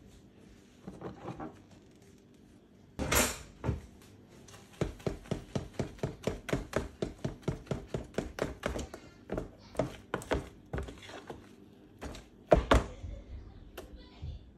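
Risen yeasted banana batter being stirred with a spoon in a plastic tub: a quick, regular run of knocks and wet slaps, about three a second. There is a louder noise about three seconds in and a heavy thunk near the end.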